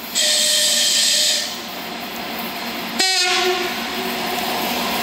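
A 2TE116U twin-section diesel locomotive gives a short high-pitched warning blast lasting about a second. Its diesel engines then keep running, growing louder as it approaches, with a brief sudden crackle about three seconds in.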